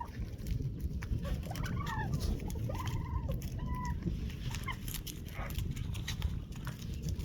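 Farmyard poultry calling, a string of short clucks and calls, over a steady low rumble.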